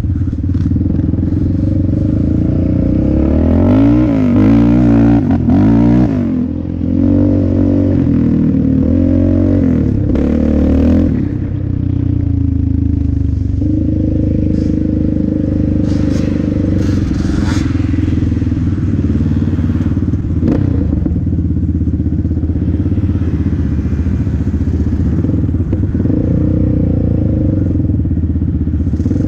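Yamaha Raptor 700R sport ATV's single-cylinder four-stroke engine running hard while riding. For the first ten seconds or so it revs up and down; after that it holds a fairly steady pitch.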